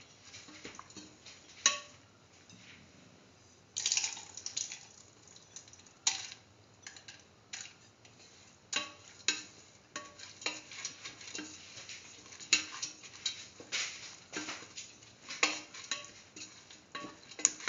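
Metal spatula stirring split mung beans, onion and chillies in a stainless steel pressure cooker: irregular scrapes and clinks of metal on metal, some strokes leaving a short ring from the pot. The strokes are sparse at first and come more often in the second half.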